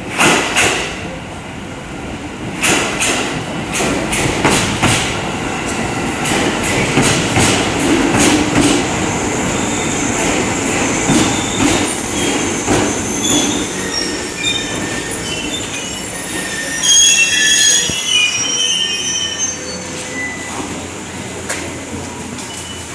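JR Nikko Line electric train running on the rails, its wheels clicking over rail joints with a steady rumble. Short high-pitched squeals from the wheels come in the second half, mostly around three quarters of the way through.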